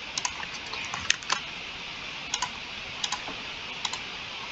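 Irregular clicking of a computer keyboard and mouse, single clicks and quick pairs a few times a second, over a steady background hiss.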